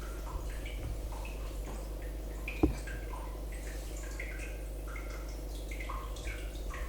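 Room tone with a steady low hum, faint short high tones scattered throughout, and a single sharp knock about two and a half seconds in.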